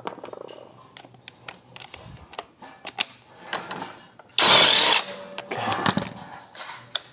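Metal parts and hand tools clicking and knocking as a Yamaha Mio J scooter's CVT is taken apart, with one loud hissing burst lasting under a second about four and a half seconds in.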